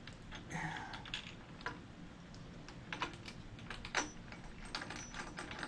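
Scattered small clicks and taps of mounting hardware being worked by hand under a motorcycle trunk rack and its plastic base plate, as a nut is started on a bolt. The clicks come faster near the end.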